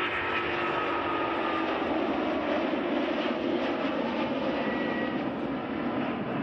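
Airbus A330-200's Rolls-Royce Trent 700 turbofans at takeoff thrust as the airliner lifts off and climbs away: a loud, steady jet rush, with a fan whine that sinks slightly in pitch in the first second and a half as the aircraft passes.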